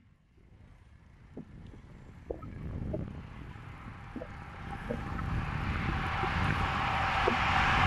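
Wind and road rumble on a camera moving along a road with a touring trike, fading in from silence, with a few light ticks. A car approaching in the oncoming lane gets steadily louder toward the end.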